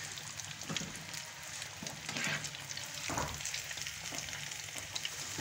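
Besan-coated fish pieces sizzling and crackling steadily in hot frying oil, fully fried. A few short knocks come from a steel slotted spoon as the pieces are lifted out.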